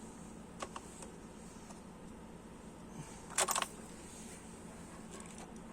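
A few light clicks, then a short rattling clatter of small hard parts being handled about three and a half seconds in, over a faint steady hum.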